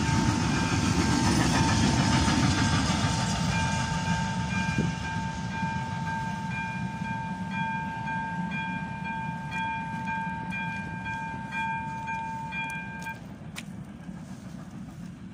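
AŽD 71 level-crossing warning signal sounding its steady electronic ringing tone while the last wagons of a freight train roll past and their rumble fades away. The warning tone cuts off about two seconds before the end, followed by a single click as the crossing switches off.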